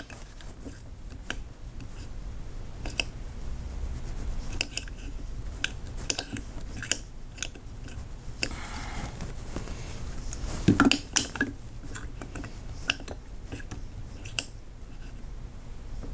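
Irregular light clicks and scrapes of Fromm hair shears' steel blades knocking against a slotted metal bending bar as the blades are bent to adjust their bow and alignment, with a louder clatter about eleven seconds in.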